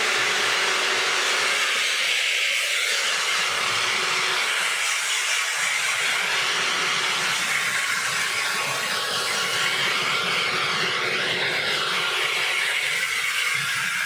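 Handheld hair dryer running steadily, blowing air onto damp hair to dry it.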